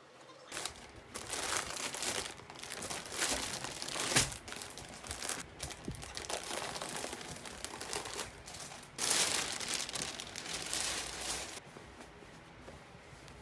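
Crinkly packaging being handled, crumpling and rustling in irregular bursts, loudest for a couple of seconds near the end before it dies down.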